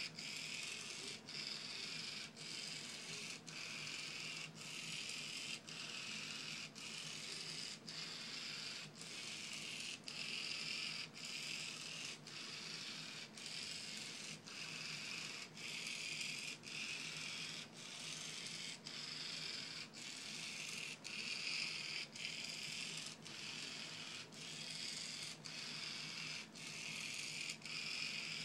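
Two small DC motors whirring under H-bridge control. The sound cuts out briefly at an even beat, about once every three-quarters of a second, then picks up again.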